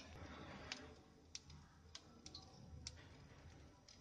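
Near silence with about five faint, sharp clicks spaced through it.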